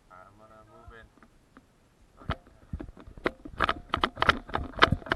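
Airsoft gunfire: irregular sharp cracks, a few at first about two seconds in, then coming thick and fast and louder toward the end. A faint voice is heard briefly at the start.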